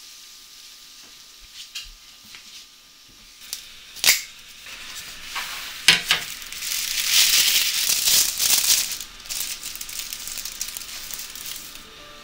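Kitchen cooking sounds: a few sharp clicks of utensils, the loudest about four and six seconds in, then a sizzling hiss that swells for a couple of seconds and dies back to a quieter hiss.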